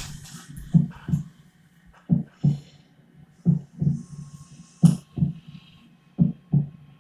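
Slow, low double thumps like a heartbeat, a lub-dub pair about every second and a half, five pairs in all.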